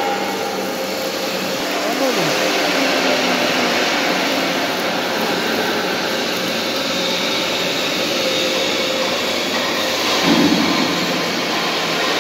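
Steady machinery noise in a steel-fabrication workshop, with a short falling tone about two seconds in and a brief louder burst near the end.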